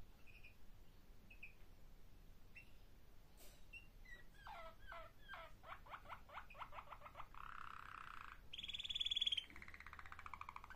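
Domestic canary singing: a few soft chirps, then a run of quick down-slurred notes that speeds up, a buzzy trill, a short loud high trill about nine seconds in, and a rolling trill.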